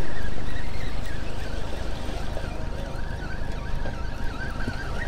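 Wind buffeting the microphone with sea waves washing against jetty rocks, a steady rushing noise with heavy low rumble. A faint wavering whine runs through the second half.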